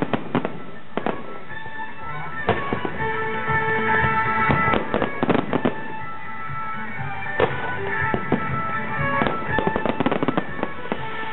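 Aerial fireworks bursting in a rapid series of sharp bangs that come in clusters, over show music.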